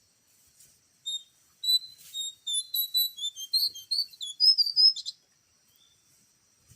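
Songbird singing: a rapid, varied string of high chirps and short whistles lasting about four seconds, loudest near the end.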